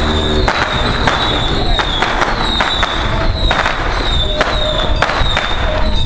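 Firecrackers going off in sharp, irregular bangs every half second to a second over a steady crackling din, with a thin wavering high tone above them.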